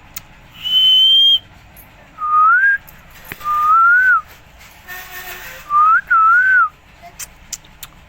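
Four clear whistled notes, spaced a second or two apart: first a steady high note, then three lower notes that glide up, the last rising and falling twice.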